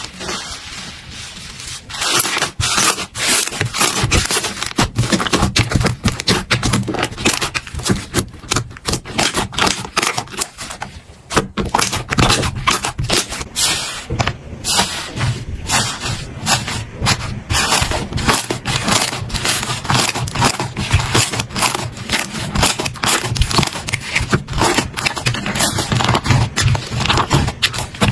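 Slime being squeezed and worked by hand, making a dense run of irregular crackling and popping clicks that thickens about two seconds in.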